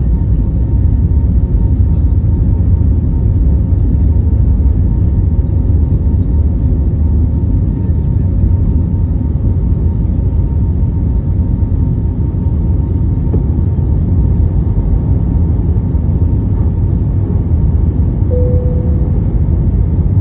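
Airbus A321neo's jet engines and airframe during takeoff: a loud, steady low rumble with a faint steady hum over it, and a short tone about eighteen seconds in.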